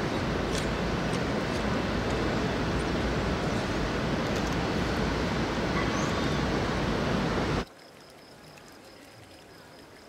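Steady, dense rushing noise of an open outdoor ambience. It cuts off abruptly about seven and a half seconds in to a quiet room tone with a faint high whine.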